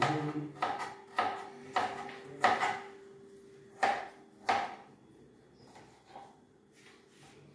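Kitchen knife chopping red onion on a white cutting board: sharp knocks about every half second, a pause, two more strokes around four seconds in, then only faint cutting.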